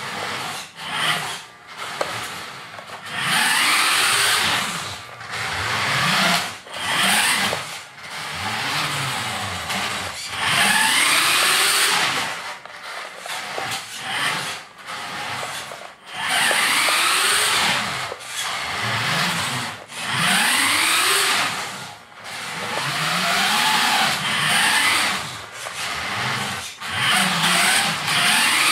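Vintage 4WD radio-controlled hopper buggy's electric motor and gears whining in repeated bursts a few seconds long as it is driven across a wooden floor. The pitch rises and falls with each burst of throttle, with short breaks between.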